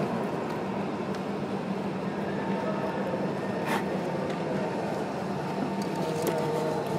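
Steady hum from the standing EF65 1105 electric locomotive, with one brief sharp click a little past the middle.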